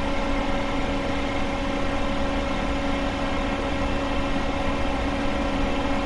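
Steady mechanical hum with a constant low drone that does not change in pitch or level.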